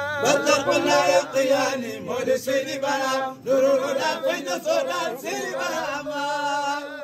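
Men's voices chanting a devotional poem in Arabic and Wolof, several voices together, with long wavering held notes.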